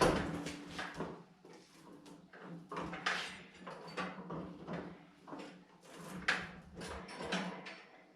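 A tool box on casters being pushed and shifted over a rough concrete floor: irregular rolling rumbles and knocks, with a sharp knock right at the start.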